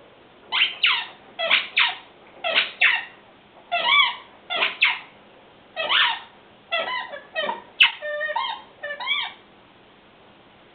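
Dog's squeaky toy squeaked over and over as a German Shepherd chews it, mostly in quick pairs of short squeaks about once a second, stopping about a second before the end. A single sharp click comes about eight seconds in.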